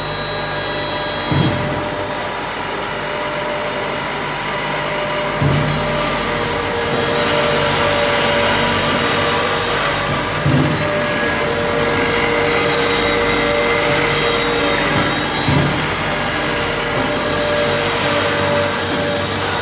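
Helix 80S wood shaving machine running, its electric motors and cutter planing logs into animal-bedding shavings: a loud, steady mechanical noise with a short knock about every five seconds.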